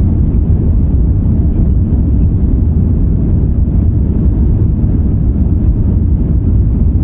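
Cabin noise of an Airbus A350-900 climbing after takeoff: the steady low rumble of its Rolls-Royce Trent XWB engines at climb power and the rush of air past the fuselage, heard from inside the cabin.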